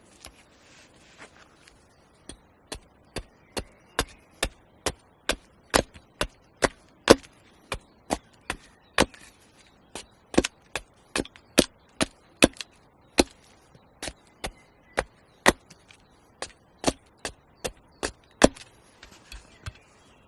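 Wood being chopped with a bladed tool: a steady run of sharp, crisp strikes, about two or three a second, starting about two seconds in and stopping shortly before the end.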